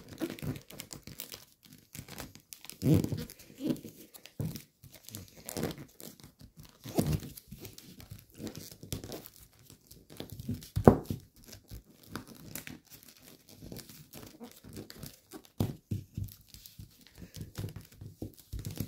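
Shiny gold foil origami paper crinkling and crackling in irregular handfuls as it is folded and pinched into creases by hand, with one sharp, loud crackle about eleven seconds in.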